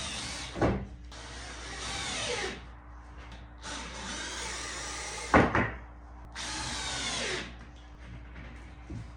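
Power tool worked on a wooden frame in four short runs of about a second each, to trim a piece that is too long, with two sharp knocks of wood in between.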